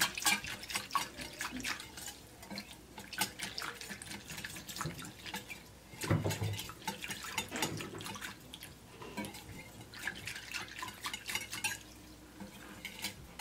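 Wire balloon whisk beating a watery flaxseed and onion mixture in a ceramic dish: quick, irregular splashing and sloshing with light clicks of the wires against the dish.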